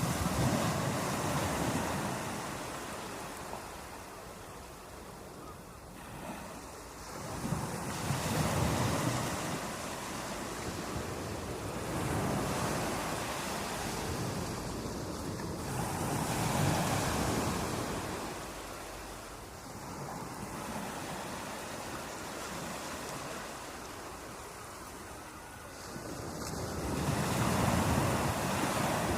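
Sea waves breaking and washing up the shore, the surf swelling and ebbing every several seconds, with about four bigger breakers.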